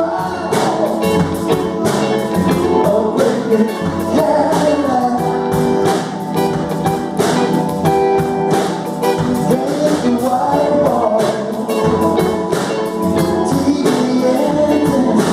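A recorded song with singing over instruments and a steady beat.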